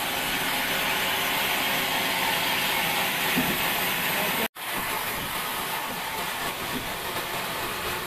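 Large vertical band saw running and cutting old pine lumber: a steady hissing rasp that cuts out for an instant about four and a half seconds in, then carries on.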